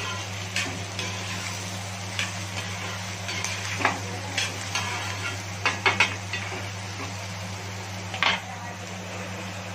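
Metal spatula scraping and clinking against a kadhai as chopped bottle gourd is stirred. A few sharper clinks come about four, six and eight seconds in, over a steady low hum.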